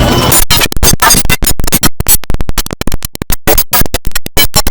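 The IBM OS/2 Warp 3 shutdown sound, loud and chopped into rapid stuttering slices, several a second, giving a scratch-like repeated effect.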